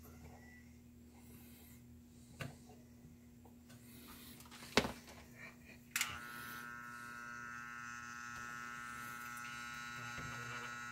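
A few light clicks from handling, then about six seconds in a click as a pistol-grip soldering gun is switched on, followed by its steady electric buzz while it heats and solders a jumper wire on a circuit board.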